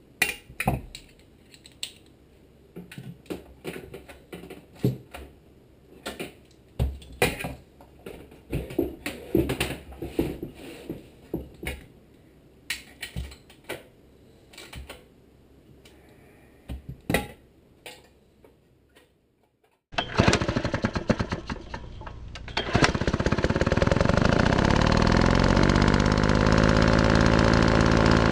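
Scattered metallic clicks and knocks of hand tools and fasteners being worked on a Tecumseh HM80 engine's sheet-metal shroud. About 20 seconds in, a loud, steady machine-like sound starts suddenly, gets louder a few seconds later and holds to the end.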